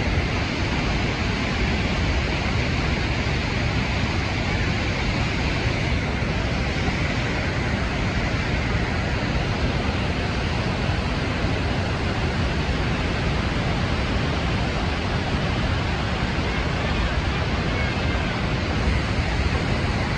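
Steady, unbroken roar of Niagara's Horseshoe Falls: a dense rush of falling water and churning river at its base.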